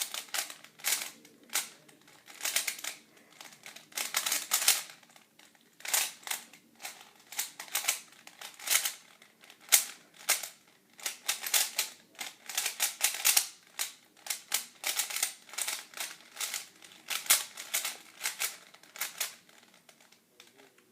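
A plastic speedcube's layers being turned fast during a Rubik's Cube solve: runs of rapid clicking and clacking, broken by short pauses between sequences of turns.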